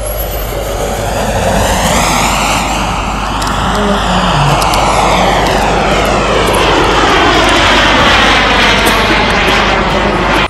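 Radio-controlled model jet flying past and climbing overhead, its engine making a loud steady rush whose pitch sweeps up and down as it passes.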